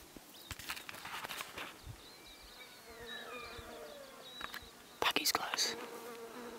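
Faint insect buzzing with a few faint high chirps, broken by short sharp knocks or rustles, the loudest about five seconds in.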